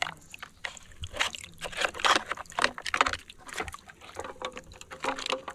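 Water sloshing and splashing in irregular short strokes as plastic toys are washed by hand.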